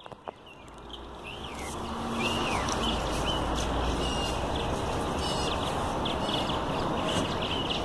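Birds chirping repeatedly over a steady rushing noise with a low rumble that builds up over the first couple of seconds.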